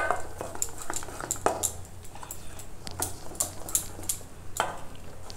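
A metal spoon stirring thick gram-flour batter in a stainless steel bowl, clinking and tapping irregularly against the bowl, with a few harder knocks.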